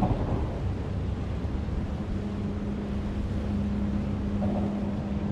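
Low, steady rumble of engine noise, with a steady hum that comes in about two seconds in and holds.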